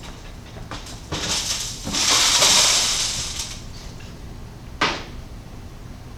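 Loose burned-off asphalt aggregate is poured into a nest of metal sieves, making a hissing, gritty rattle that builds about a second in and fades over two seconds. A single sharp metallic clack follows near the five-second mark.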